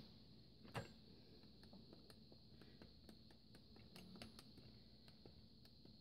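Near silence with a few faint handling clicks, the clearest just under a second in, as the handset of a push-button cradle telephone is lifted off its cradle.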